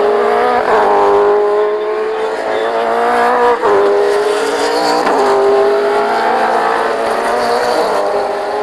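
A V8 Supercar's 5.0-litre V8 engine running hard near the top of its revs, one steady, high engine note. Its pitch breaks sharply three times: gear changes or lifts.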